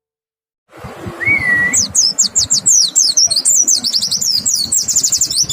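White-eye (pleci) singing: after a short silence, one whistled note, then a fast run of high, sweeping chirps that carries on without a break.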